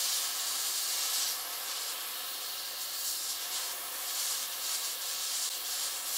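Aerosol can of Loctite LB 8040 Freeze & Release freeze spray held down in one long, steady hiss, chilling a seized broken bolt so it shrinks and the penetrating lubricant can work in.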